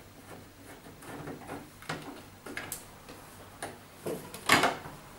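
Scattered light clicks and ticks of a screwdriver working the screws behind the kick-strip flap of an LG front-loading washing machine. About four and a half seconds in comes a louder plastic clatter as the plastic kick strip is taken hold of and pulled at its latches.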